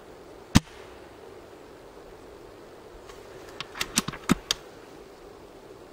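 Silverback SRS A2 spring-powered bolt-action airsoft sniper rifle firing once with a single sharp crack. About three seconds later comes a quick run of clicks and clacks as the bolt is worked to re-cock it.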